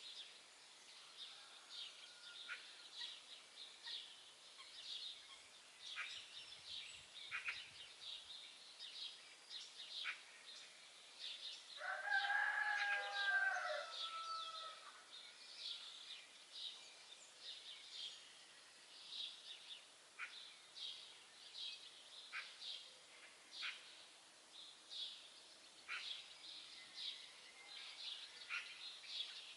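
Songbirds chirping in many short, high notes throughout, with one louder, drawn-out call lasting about two seconds near the middle.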